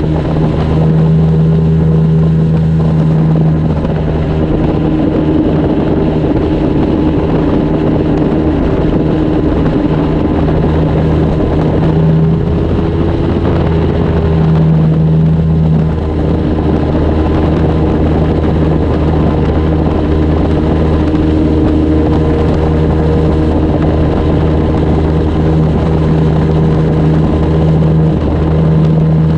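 Outboard motor of a flats skiff running steadily at cruising speed, a constant drone with wind and water noise over it.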